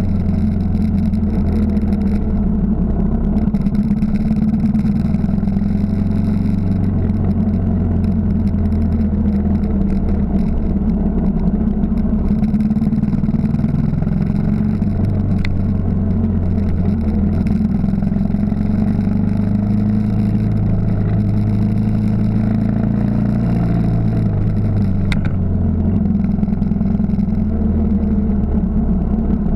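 Yamaha XT 600's single-cylinder four-stroke engine running under way, close to the camera on the bike, rising and falling in pitch as the speed changes. Two sharp clicks cut through, about halfway through and a few seconds before the end.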